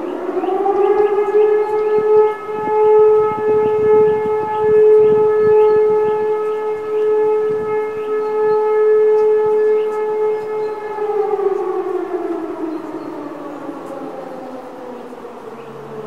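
E57 electromechanical civil-defence siren sounding a test alarm. It winds up to a steady tone, holds it for about ten seconds, then winds down with falling pitch near the end.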